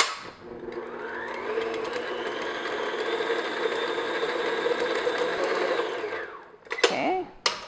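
Electric stand mixer switched on with a click, its motor speeding up to a steady whir as the flat paddle beats softened butter in a stainless steel bowl, then winding down when switched off about six seconds in. A sharp click comes near the end.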